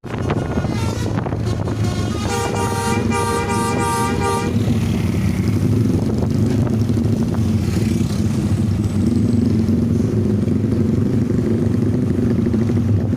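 A tour bus's telolet horn, a multi-tone musical horn, plays a short choppy tune of several chords starting about two seconds in and lasting about two seconds. The steady rumble of bus engines and traffic runs underneath.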